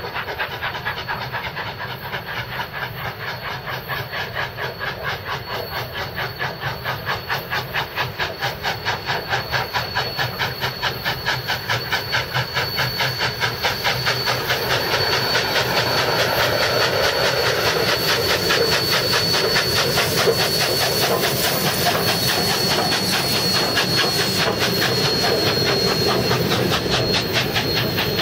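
Union Pacific 844, a 4-8-4 steam locomotive, working past with rapid, even exhaust chuffs. The chuffs grow louder as it approaches and stay loud as it goes by, with a steady high whine over them. Near the end its passenger cars roll past.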